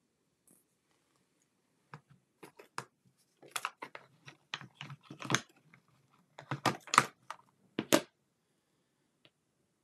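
Clear plastic stamp case and clear photopolymer stamps being handled: a run of sharp plastic clicks and crinkles. It starts about two seconds in and stops about eight seconds in, loudest near the end.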